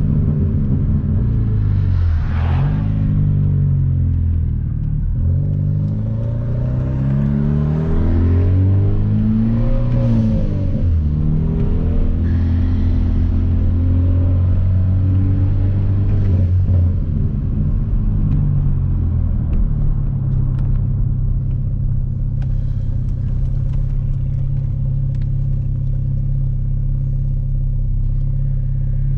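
Tuned, full-bolt-on Hyundai Veloster Turbo's 1.6-litre turbocharged four-cylinder and exhaust under way, its pitch rising and falling several times as the car accelerates and eases off. From about two-thirds of the way in it settles into a steady drone.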